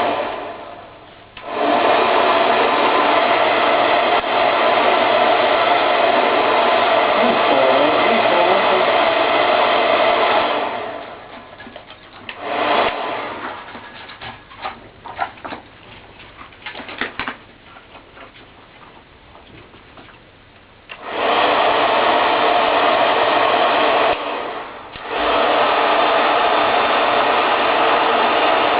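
Hair dryer blowing in long blasts: switched on for about nine seconds, off for about ten, then on again twice with a short break between. Small scattered knocks and clicks are heard while it is off.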